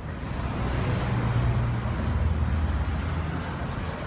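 Cars driving past on the street, a low engine hum with tyre noise that swells about half a second in and eases near the end.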